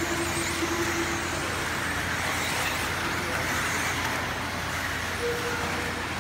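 Several electric RC buggies with 17.5-turn brushless motors running laps on an indoor dirt track: a steady hiss of motors and tyres on the dirt, with two brief steady whines, one near the start and one near the end.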